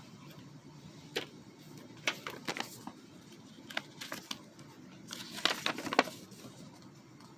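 Spyderco Para 3 folding knife being handled, making short, sharp clicks: one about a second in, a scattering of several more over the next few seconds, then a quick cluster of clicks about five to six seconds in, the loudest near the end of that cluster.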